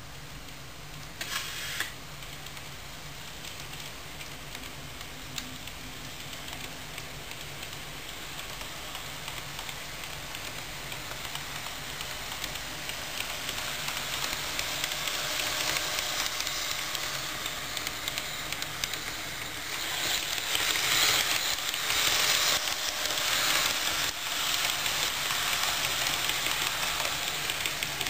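Model Plan U train running along the track: a rolling hiss of wheels and motor that grows louder as the train nears and is loudest about three-quarters of the way through. A short hiss comes about a second and a half in.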